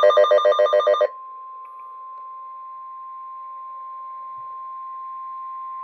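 A burst of rapid pulsing electronic beeps, about eight a second for roughly a second. Then the NOAA Weather Radio warning alarm tone, a single steady 1050 Hz tone, sounds for several seconds and cuts off near the end. The tone is the alert ahead of a broadcast severe thunderstorm warning.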